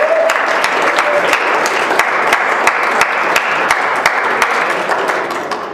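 Audience applauding, with a short whoop in the first second or so; the applause fades away near the end.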